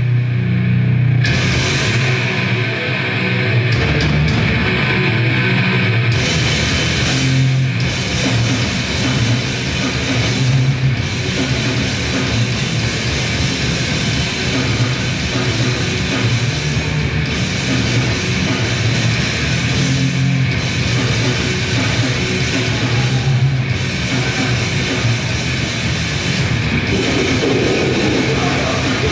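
Grindcore band playing live: heavily distorted guitars and bass, with very fast, dense drumming that comes in a few seconds in.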